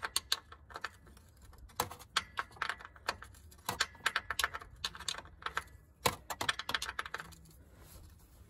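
Ratcheting wrench clicking in quick bursts with short pauses between, as the gearbox's oil plug is screwed in and tightened.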